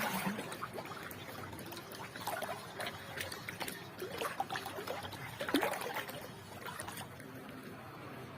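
Seawater splashing and trickling on the shore in irregular bursts, with scattered clicks, for about seven seconds before settling.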